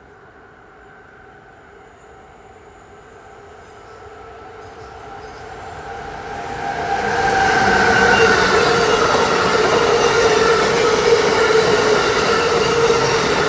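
Amtrak Northeast Regional led by an ACS-64 electric locomotive approaching and passing at speed: a steady whine grows louder as it nears, and from about seven seconds in the rush of the passenger cars going by is loud and steady.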